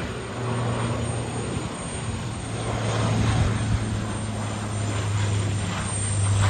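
Airplane engines during a landing: a steady low drone over rushing air noise, slowly growing louder.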